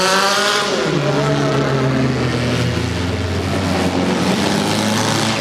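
Compact demolition derby car engine running, its revs falling during the first second, then holding at a steady pitch.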